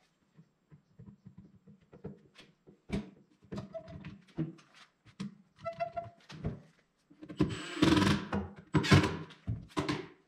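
Irregular wooden knocks, taps and thunks as a particle-board drawer front is fitted against a drawer box and clamped on. The handling grows louder and denser near the end as a bar clamp is set in place.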